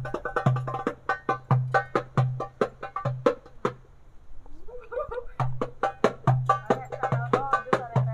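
Two-headed hand drum (kendang) played by hand in a steady rhythm: deep booming bass strokes about once a second with quick, sharp slaps between them. The playing breaks off for about a second and a half midway, then picks up again.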